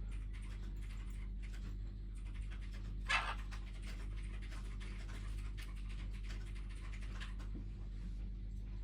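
Young Quaker parrot (monk parakeet) making soft, breathy muttering sounds as it tries to talk, with one louder raspy burst about three seconds in. A steady low hum runs underneath.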